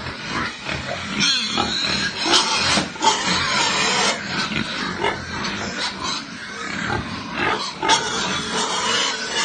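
A litter of young piglets calling at close range, several at once and overlapping without a break.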